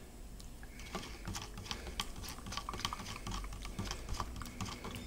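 A spoon stirring in a plastic cup, making quick, irregular clicks and taps against the cup's sides, starting about a second in, as sodium hydroxide is mixed into the iron chloride solution to precipitate magnetite.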